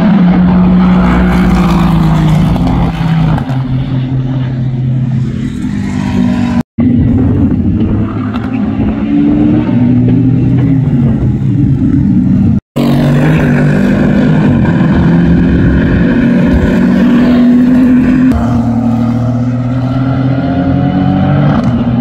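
Twin-turbo 4.0-litre V8 engines of GT racing cars, Aston Martin Vantages among them, accelerating and changing gear as they pass on track, the pitch rising and falling. The sound cuts out briefly twice.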